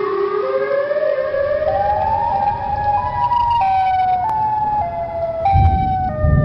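Emergency-alert siren tone climbing in pitch in distinct steps over the first few seconds, then stepping back down a little. A low rumble runs underneath from about a second in and grows louder near the end.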